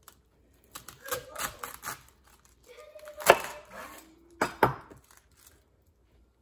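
Chef's knife slicing through a small savoy cabbage head on a bamboo cutting board: crisp crunching of the leaves, then a sharp knock of the blade meeting the board about three seconds in, and two more quick knocks about a second later.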